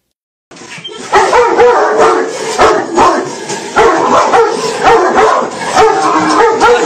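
Dogs in kennel cages barking and yipping non-stop and loudly, starting abruptly about half a second in.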